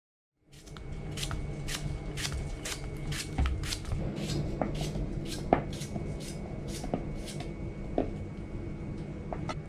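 A kitchen knife slicing a cucumber held in the hand, one crisp cut about every half second, beginning about a second in and stopping near the end.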